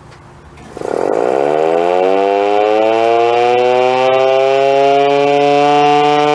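Federal Signal Model 2 electromechanical siren winding up. A faint low hum comes first, then about a second in the siren starts, its pitch rising quickly and levelling off into a loud, steady tone.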